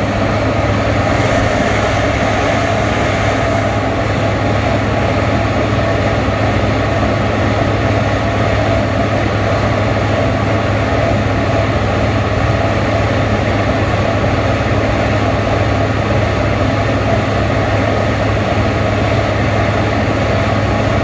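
Farm grain-handling machinery started up to load grain, running steadily at a constant speed with a low hum.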